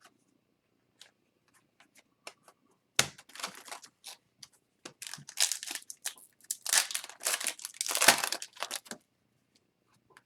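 Foil wrapper of an Upper Deck Series 2 hockey card pack being torn open and crinkled, a run of rustling tears lasting about six seconds. A few faint clicks come before it.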